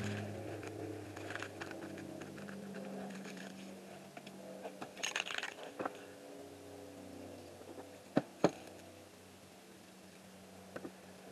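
A crumpled wad being dabbed and pressed onto wet spray paint on a board, giving scattered crackling and light clicks, with two sharp clicks a third of a second apart about eight seconds in. A steady low motor hum runs underneath, fading away.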